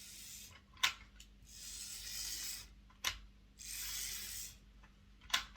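Hornby ringfield-motor locomotive chassis running under power in three short bursts of about a second each, with sharp clicks between them, as the freshly reassembled drive is tested.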